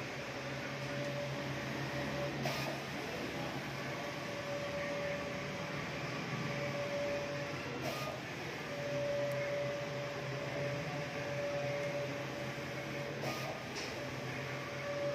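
Goldtech Rhino KM512 large-format printer printing: a steady whine from the print-head carriage that stops and starts again several times, with short clicks at the breaks, over a constant low machine hum.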